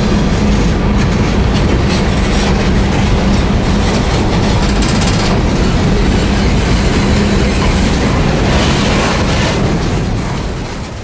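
Norfolk Southern freight train's hopper cars rolling past close by: steady loud noise of steel wheels on rail with a low hum under it. The sound drops away about ten seconds in.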